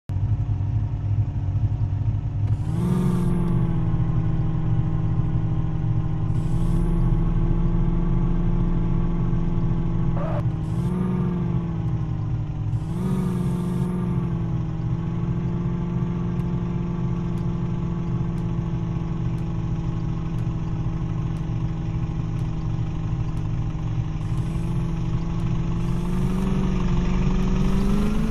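JCB 3DX backhoe loader's diesel engine running steadily, its note rising briefly several times as the digging and loading hydraulics put it under load.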